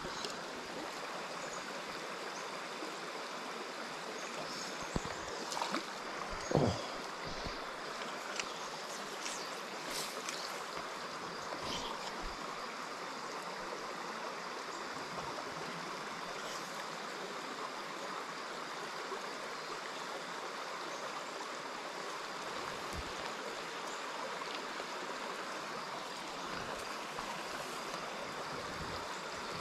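A small rocky stream running: a steady, even rush of flowing water. A few brief knocks stand out above it about five to seven seconds in.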